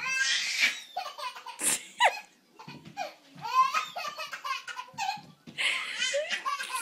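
Baby laughing in repeated bursts, with a few short high-pitched rising squeals.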